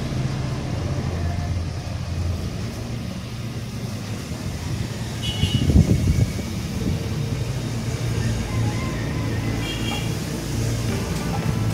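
Steady low rumble of motor vehicles running, with road traffic noise, swelling louder for about a second around six seconds in.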